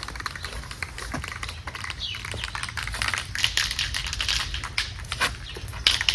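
Aerosol spray-paint can hissing in short strokes, the spray coming and going and strongest a few seconds in, with light clicks over a low steady rumble.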